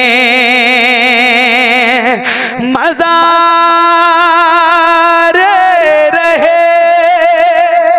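A man singing a naat into a microphone, holding long drawn-out notes: a wavering held note, a short break about two seconds in, then a new note sustained steadily, with small turns in the melody near the end.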